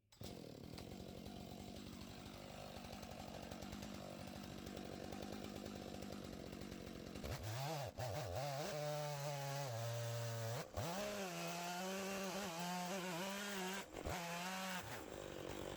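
Stihl chainsaw on an Alaskan chainsaw mill ripping an oak log into slabs. The engine runs steadily, then about seven seconds in gets louder with its pitch wavering under load, with a few abrupt short breaks.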